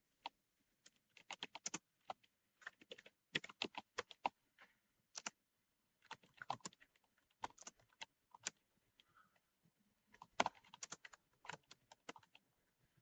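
Faint typing on a computer keyboard: irregular runs of quick key clicks with short pauses between them, as a question is typed in.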